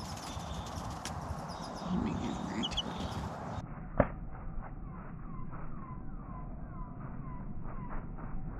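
A young chicken chick peeping: short falling cheeps repeated about twice a second in the second half, with a single sharp knock about four seconds in. Small birds chirp in the first few seconds.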